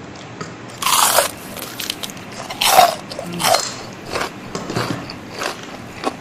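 Loud crunches of teeth biting into crispy fried chicken skin, two big bites about a second in and near three seconds, then a run of smaller crunches as it is chewed.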